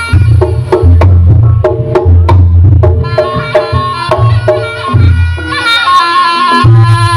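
Reog Ponorogo gamelan accompaniment played live: drums beating a driving rhythm over ringing gong-chime notes, with a held, wavering melody note coming in near the end.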